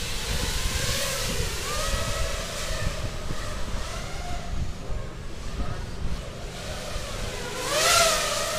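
Racing quadcopters' electric motors whining, the pitch wavering up and down with the throttle. About eight seconds in, one drone passes close by, louder, its whine rising and then falling.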